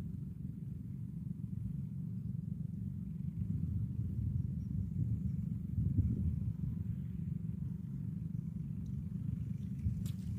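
Wind buffeting the microphone: a steady low rumble that rises and falls, with a brief click near the end.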